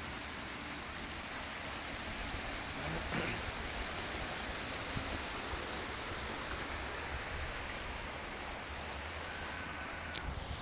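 Steady rushing hiss of water flowing in a small stream channel, with one sharp click near the end.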